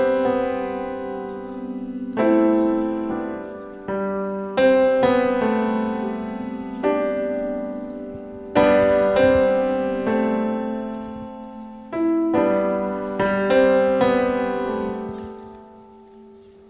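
Slow solo piano music: chords struck every second or two, each left to ring and die away, fading out near the end.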